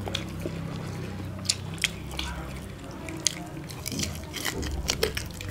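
People biting and chewing roast chicken and sel roti: irregular crisp bites and clicks over a low, steady hum.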